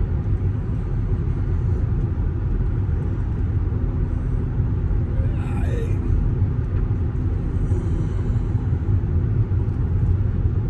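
Steady low road and tire roar heard inside a car's cabin at highway speed, about 65 mph, from Cooper Endurance Plus tires. The owner finds them loud since they were rotated and balanced and wonders whether it could instead be wheel bearings.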